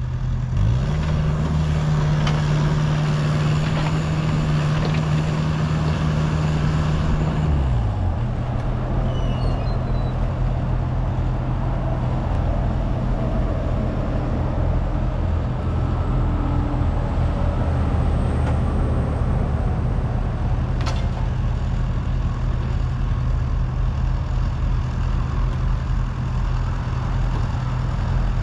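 Diesel engine of heavy digging equipment running steadily. Shortly after the start it revs up, holds the higher speed for about seven seconds, then settles back to its working speed.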